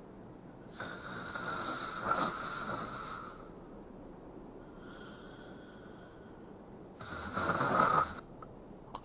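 A girl snoring: two long, rasping snores about six seconds apart, the first starting about a second in and the second near the end, with a fainter breath between them.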